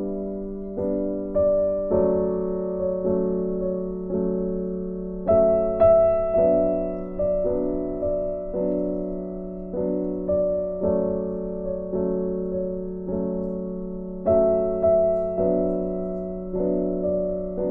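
Background piano music: a slow, gentle melody of notes that strike and fade, over a steady low chord.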